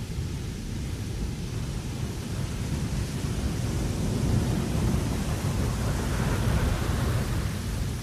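Wind blowing across a ship's deck: a steady low rumble with a thin hiss above it, growing stronger about halfway through and gusting harder around six seconds in.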